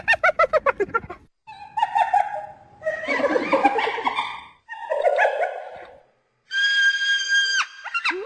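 Spotted hyenas calling. A fast giggling run of calls stops about a second in. It is followed by three short, rougher bouts of calls with brief gaps between them, and near the end by one long, steady, high-pitched call that breaks off with a sharp drop.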